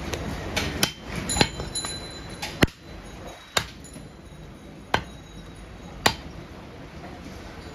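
Heavy butcher's knife chopping goat meat into pieces on a wooden chopping block: about six sharp chops roughly a second apart, some with a faint metallic ring from the blade.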